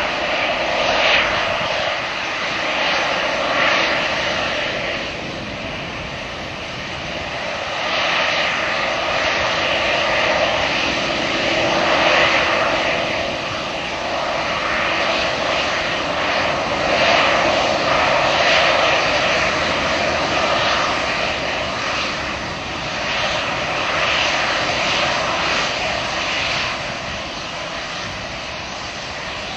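Airbus A320-212's twin CFM56 turbofan engines running at low taxi power as the airliner rolls past, a steady jet rush that swells and eases every few seconds.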